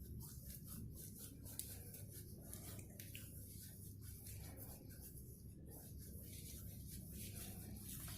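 Faint, irregular rustling and rubbing of fresh tulsi and Mexican mint leaves being crushed between the hands to squeeze out their juice, over a low steady hum.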